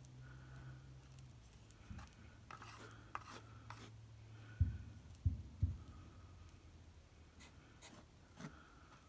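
Plastic spreader scraping and smoothing wet Sculptamold in short rasping strokes. About halfway through come three dull, low thumps in quick succession.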